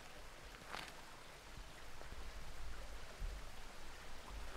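Quiet outdoor ambience in woodland: a steady, even hiss with a low rumble that builds from about two seconds in, and one faint click just under a second in.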